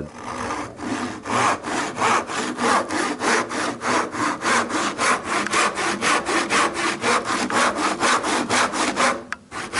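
Tenon saw cutting through timber by hand in quick, even strokes, about four to five a second, stopping briefly near the end and then starting again.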